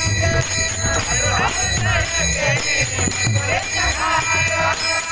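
Kirtan music: a man's voice singing melodic phrases over jingling metal hand cymbals and a steady low drum beat.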